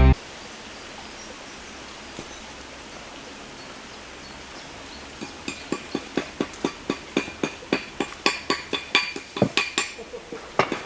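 Quiet background, then from about five seconds in a rapid run of light metallic clinks, roughly three or four a second, like small metal pieces knocking together.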